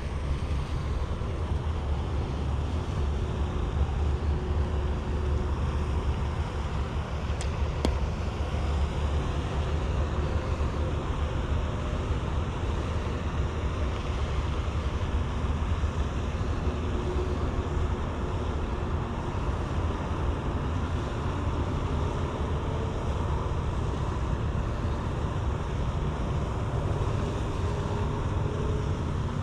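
Wind buffeting the microphone outdoors: a steady low rushing noise, with a couple of faint clicks about eight seconds in.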